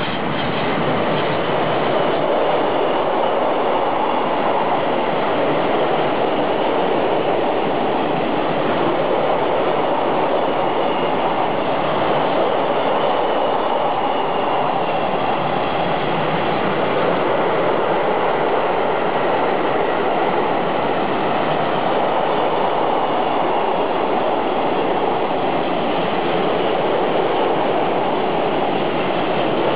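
Freight train of double-deck car-carrier wagons loaded with new cars rolling past, a steady noise of steel wheels running on the rails, with some faint high-pitched wheel squeal.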